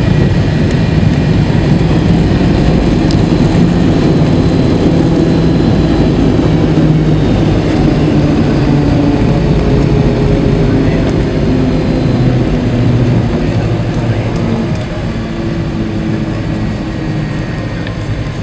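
Cabin noise of an MD-83 airliner rolling on the ground after landing: a loud, steady rumble of its engines and wheels, with engine tones slowly falling in pitch and the noise easing off somewhat near the end as it slows.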